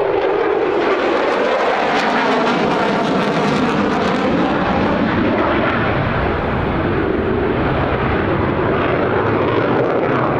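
Loud jet noise from a Mitsubishi F-2B fighter's single F110 turbofan engine as the jet pulls a hard, high-G turn. It comes in with a sudden rise in loudness, then holds steady.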